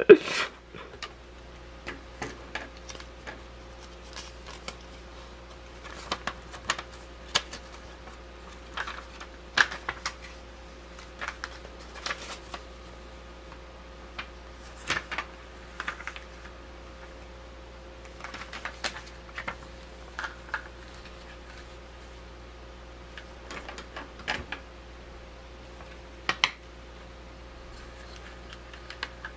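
Plastic building bricks clicking and clattering as they are handled and fitted together: scattered sharp clicks, some in quick clusters, over a faint steady hum.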